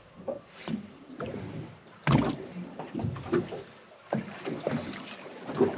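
Water slapping and knocking against a fibreglass boat hull: irregular splashes and knocks, the heaviest thump about two seconds in.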